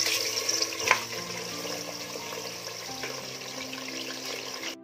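Raw mutton pieces hitting hot oil and frying with a loud, steady sizzle that starts suddenly, with a single knock about a second in.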